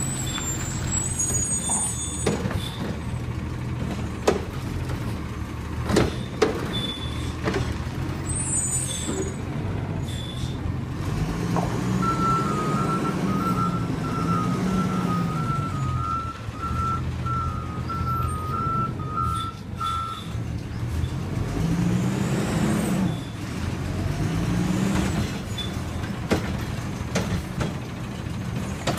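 Diesel garbage truck running at work, its engine revving up and settling twice as the front arms lift and lower the carry can, with short air hisses and a few sharp clunks in the first seconds. A reversing beeper sounds steadily for about eight seconds in the middle.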